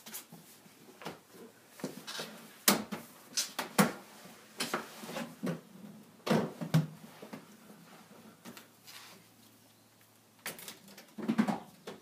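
Irregular knocks, clunks and rattles of things being handled, several of them sharp and loud, over a faint steady hum that stops about ten and a half seconds in.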